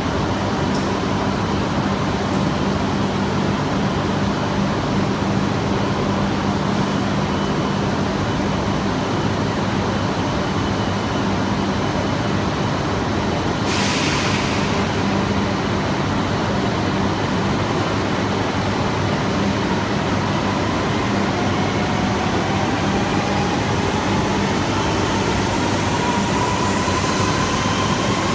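Shinkansen train of E5 and E3 series cars at the platform: a steady electric hum, a brief hiss of air about halfway through, then a rising motor whine in the last third as the train begins to pull away.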